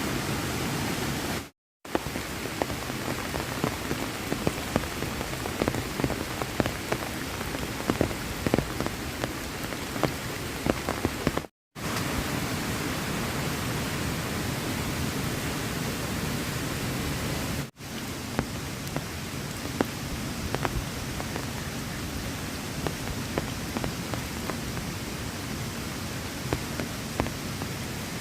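Heavy rain falling steadily, with many individual drops ticking sharply through the hiss. The sound drops out to silence for a moment three times.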